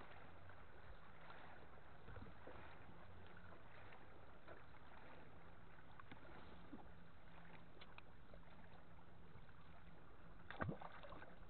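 Quiet fishing-boat ambience: faint water lapping against the hull under a low steady hum, with light scattered ticks and one short, louder knock near the end.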